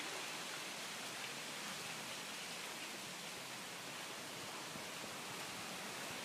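Steady rustling hiss of wind through bamboo leaves.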